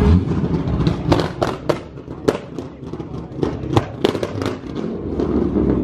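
Corvette's V8 exhaust popping and banging on a two-step launch limiter: about a dozen sharp, irregular cracks over a few seconds, with the engine's low rumble underneath.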